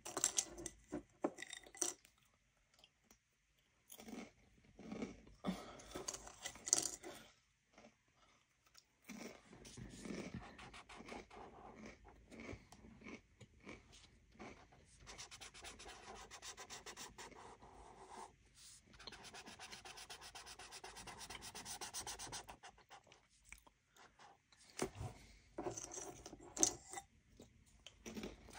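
Felt-tip marker scrubbing back and forth on paper in quick, even strokes as a large area is coloured in, with scattered taps and handling knocks in the first few seconds and again near the end.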